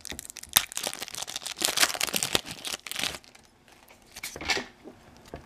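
Foil wrapper of an O-Pee-Chee baseball card pack crinkling and tearing as it is ripped open by hand for about three seconds, then a few softer rustles as the cards are slid out.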